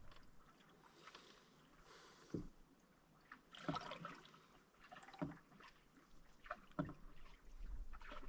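Faint canoe paddle strokes: short splashes and drips of the paddle in the water about every second and a half, with wind on the microphone near the end.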